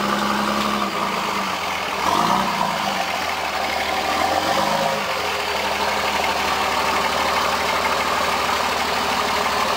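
Rock-crawling off-road buggy's Cummins diesel engine working the buggy over boulders: revs rise and fall a few times in the first five seconds, then it runs steadily.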